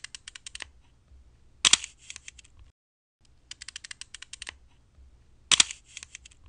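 Camera shutter firing in rapid bursts, about ten frames a second, in four short runs of under a second each; two of the runs open with a louder click.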